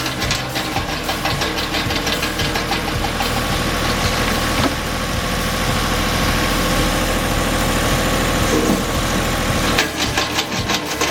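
An engine-driven machine running steadily, cut off abruptly near the end as guitar music takes over.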